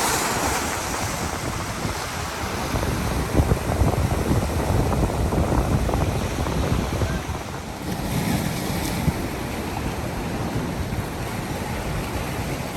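Ocean surf breaking and washing in at the shoreline rocks, a steady rushing with a stronger wash about eight seconds in. Wind buffets the microphone throughout with a low rumble.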